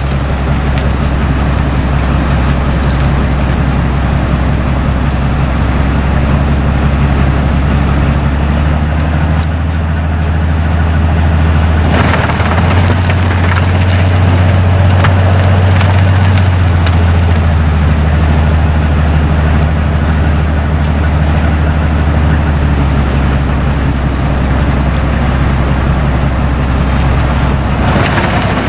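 Railway snow blower's heavy engine droning steadily as it churns through hard-packed snow, over a hiss of snow being cut and thrown. The engine note steps higher about twelve seconds in and settles back a few seconds later, with brief surges of snow noise around the change and near the end.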